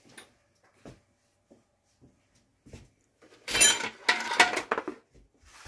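Hard objects being handled and knocked together on a cluttered workbench: a few light taps, then from about three and a half seconds in a loud clatter lasting about a second and a half, with a clinking ring.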